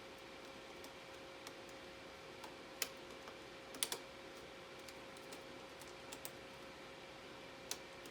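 Scattered light clicks and taps from handling and fitting a PCIe riser card, with a few sharper clicks about three and four seconds in and again near the end.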